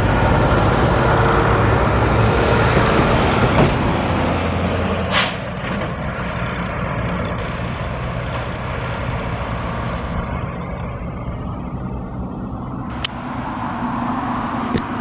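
Road traffic at a level crossing: a truck's engine running with a low hum. About five seconds in there is a brief sharp hiss, and the noise then settles lower.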